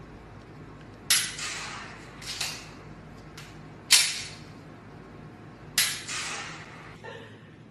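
Practice pistol fired four times: sharp snaps, each with a short fading ring, at about one, two and a half, four and six seconds in, the one near four seconds loudest.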